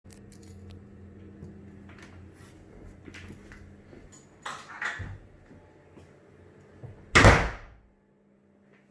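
A room door shutting with one loud thud about seven seconds in, after a few lighter knocks and clicks.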